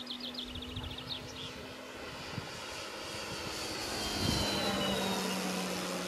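Electric motor and propeller of a Seagull Gee Bee Model Z radio-controlled scale model in a fly-by: a steady hum that grows louder as it approaches, then drops in pitch as it passes about four seconds in.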